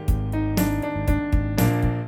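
Yamaha P-125 digital piano playing sustained chords over deep bass notes, with new chords struck about half a second in and again near the end.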